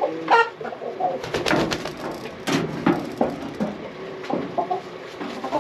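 Chickens in a coop clucking and making low, cooing calls, with a flurry of rustling and knocks about one to three seconds in.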